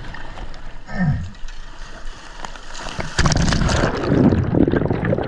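Sea water splashing, rushing and bubbling around a swimmer as the action camera goes under and back out of the surface. It is at its loudest from about three seconds in.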